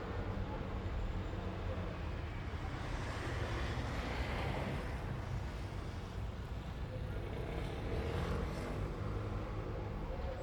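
Street traffic: a steady low engine rumble, with one vehicle passing by and swelling up about three to five seconds in, and another passing about eight seconds in.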